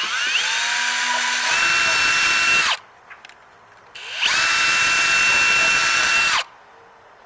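Electric drill boring out screw holes in a RAM mount plate to widen them: two runs of about two seconds each, the motor winding up in pitch at the start of each run and winding down as it stops.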